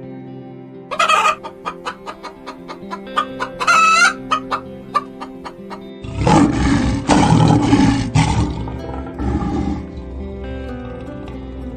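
Chickens clucking in a run of short, sharp calls, with a rooster crowing, over background music.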